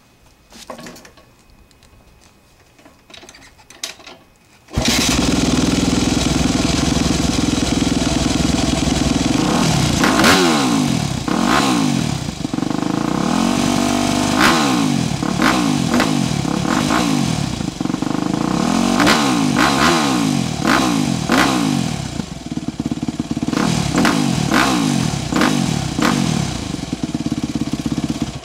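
2006 Yamaha YZ250F four-stroke single-cylinder engine exhausting through a 2009 YZ250F factory slip-on muffler. It comes in abruptly about five seconds in and runs steadily, then from about ten seconds on it is revved again and again in quick blips that rise and fall in pitch, until it cuts off at the very end.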